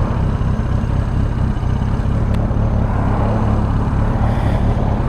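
Air-cooled inline-four engine of a 1983 Suzuki GS1100E motorcycle running at a steady pitch.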